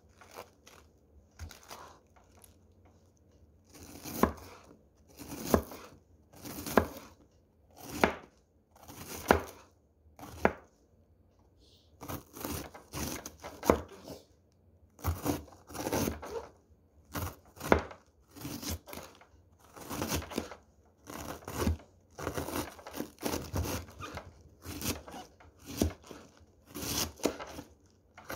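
Kitchen knife slicing a head of cabbage into thin shreds on a board, one cut after another. The strokes start slowly, about one a second, then after a short pause the cutting comes faster and steadier.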